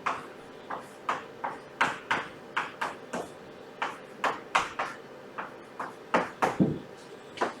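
Writing: a run of short, irregular pen or marker strokes, about two or three a second, with one duller low knock about six and a half seconds in.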